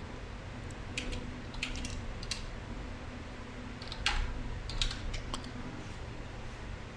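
Computer keyboard keystrokes: a few separate key presses at an uneven pace, the loudest about four seconds in, over a low steady hum.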